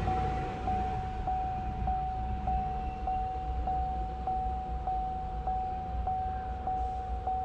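A steady electronic warning tone that repeats without letup, each long beep cut by a short gap about every 0.6 s, over a low, steady rumble.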